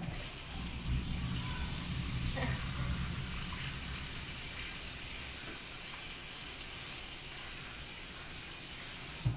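Kitchen tap running into a pan of cut green banana pieces as they are rinsed and turned by hand, a steady splashing hiss that starts and stops abruptly.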